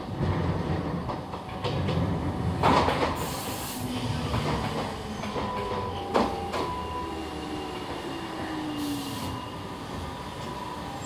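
Two-car Echizen Railway electric train pulling in and braking to a stop: a low rumble and clatter of wheels on rail, a brief screech about two and a half seconds in, a sharp click near the middle, and falling tones as it slows.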